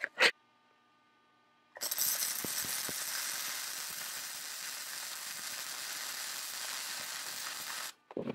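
Electric welding arc crackling and sizzling steadily for about six seconds as a hole in sheet steel is welded shut, then cutting off suddenly. Two short sharp knocks come just before the arc starts.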